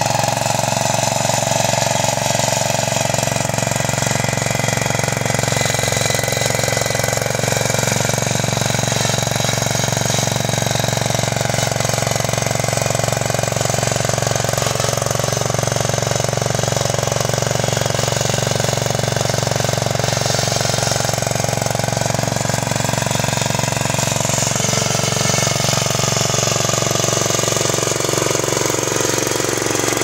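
Cub Cadet garden tractor converted to a tracked bulldozer, its engine running steadily with a rapid chattering beat as it pushes snow with its front blade.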